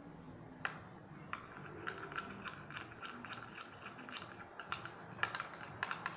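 Spoon clicking and scraping against a small pot while slime ingredients are mixed, in irregular quick taps with a few sharper knocks near the end.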